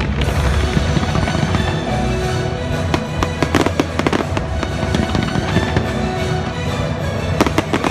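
Aerial fireworks bursting and crackling over steady show music, with clusters of sharp cracks about three to four seconds in and again near the end.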